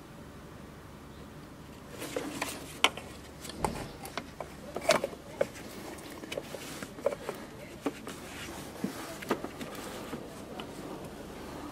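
Irregular light clicks and knocks of hand work on a car's cooling system: the coolant hose and its wire spring clip being handled and fitted onto the thermostat housing. The clicks start about two seconds in and come at uneven intervals.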